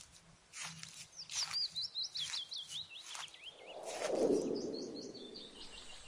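Footsteps crunching through vegetation, one stride under every second. A small songbird sings a fast chirping trill over them, with a shorter phrase near the end. A rush of wind-like noise swells and fades about four seconds in.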